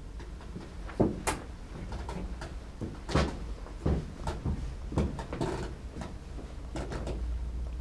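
A series of irregular knocks and thumps, the sharpest about a second in and around three and five seconds, over a steady low hum.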